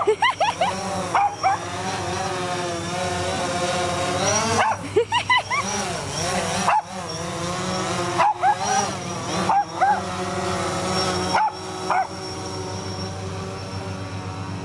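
Small white bichon frise barking and yipping in short bursts every second or two at a hovering DJI Phantom 4 quadcopter, over the drone's steady propeller buzz. The barking stops near the end.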